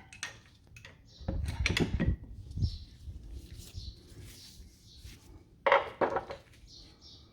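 A metal pry tool levering a front brake pad back in the caliper: scraping with sharp metal knocks and clinks, a cluster of them about a second and a half in and the loudest clank near six seconds.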